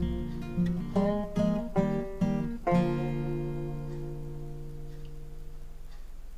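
Background music: an acoustic guitar strums a few chords, then ends on a final chord about two and a half seconds in that rings out and slowly fades away.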